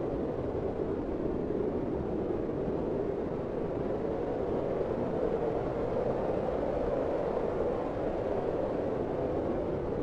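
Steady, even rushing noise, strongest low in the pitch range, with no distinct calls, knocks or changes.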